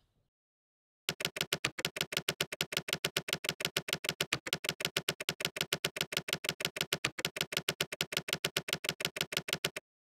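Text-typing sound effect: a fast, even run of short electronic blips, about seven a second, starting about a second in and stopping abruptly near the end.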